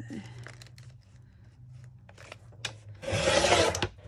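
Tim Holtz Tonic paper trimmer cutting a large paper envelope: a few light clicks and paper handling, then the blade carriage slid along the rail in one scraping cut of just under a second, about three seconds in.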